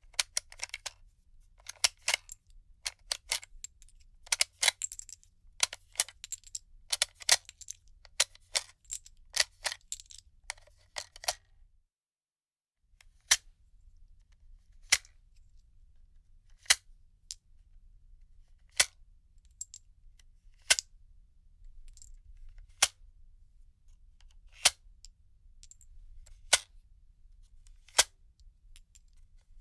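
Rounds being pushed out of a gun magazine: quick clusters of sharp metallic clicks for the first twelve seconds or so, then after a short gap, single sharp clicks about every two seconds.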